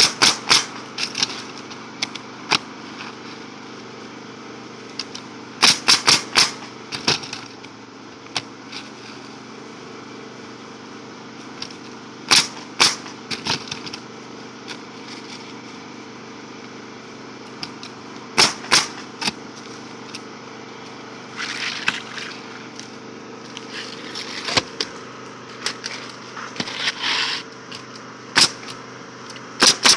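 Pneumatic roofing nailer firing nails into asphalt shingles in quick groups of three or four shots, a group about every six seconds, over a steady low hum. Brief scraping of shingles being positioned between groups.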